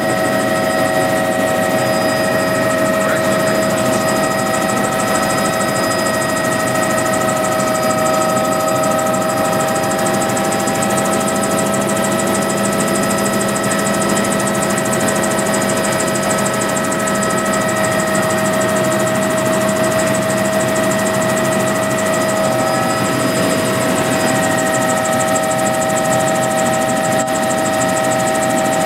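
Helicopter in flight heard from inside the cabin: a steady engine and rotor drone with several constant whining tones over it. The tones shift slightly about three-quarters of the way through.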